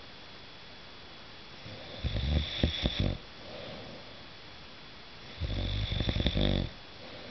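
A man snoring in his sleep: two loud snores about four seconds apart, each a little over a second long, with a softer breath between them.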